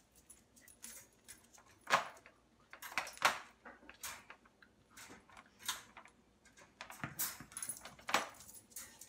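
Metal wire dog crate rattling and clinking in irregular bursts as a corgi puppy jumps and scrambles against it. The loudest rattles come about two and three seconds in and again near the end.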